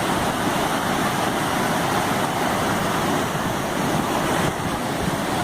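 Water pouring over a dam spillway, a steady loud rush.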